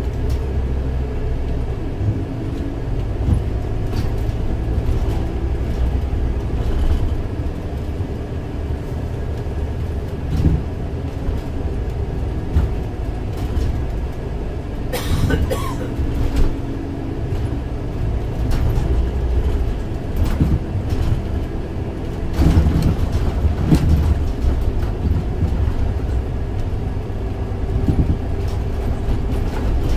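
Scania OmniLink three-axle bus with a biodiesel engine, running under way and heard from inside: a steady low engine and road rumble with a faint whine, broken by scattered sharp knocks and rattles. The rumble swells for a few seconds about three quarters of the way through.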